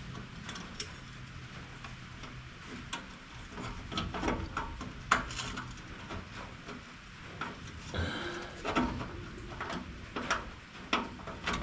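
Scattered clinks, knocks and scrapes of hand tools and bolts against the metal of a round baler as bolts are fitted and threaded back in.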